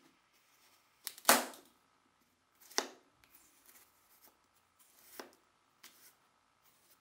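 Meat cleaver chopping through an apple and striking a bamboo cutting board: three chops, the first the loudest.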